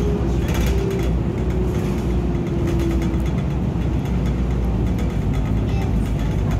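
City transit bus in motion, heard from inside the cabin: a steady engine and road rumble with a faint whine that sinks slightly in pitch over the first three seconds, and a few brief rattles about half a second in.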